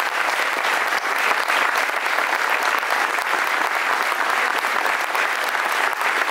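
Audience applauding steadily, a dense clatter of many hands clapping at once.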